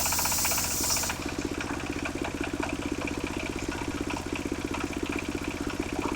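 Engine-driven circular sawmill blade finishing a cut through hard, dry wood, with a high hissing rasp that stops about a second in. The engine then keeps running steadily with a regular pulse while the blade spins free.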